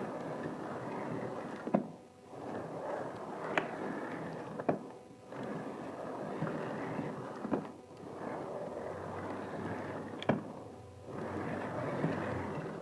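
Water and clothes sloshing inside a Rovin Ecospin hand-cranked washing machine as its drum is turned back and forth. The sloshing comes in swells every two to three seconds, with a sharp click near most changes of direction.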